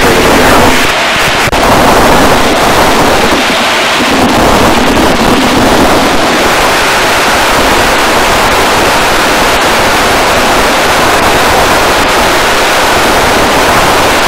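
Beech T-34A Mentor in level cruise flight: a loud, steady rush of wind and engine noise, dipping briefly about a second in.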